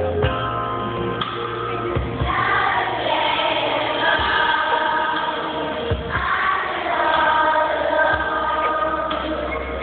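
Primary school children's choir singing a medley over steady low accompaniment notes. The singing grows fuller about two seconds in.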